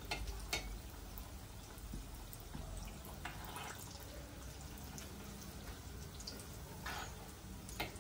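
Breadcrumb-coated vegetable nuggets deep-frying in oil: a soft, steady sizzle with a few brief crackles, one about three seconds in and another near the end.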